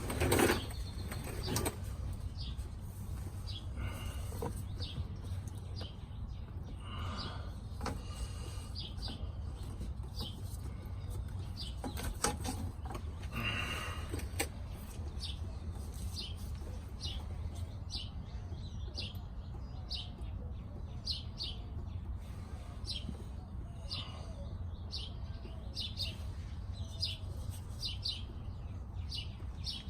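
Small birds chirping over and over in short high calls, thickest in the second half, over a steady low rumble. A few knocks and clicks near the start and about halfway through.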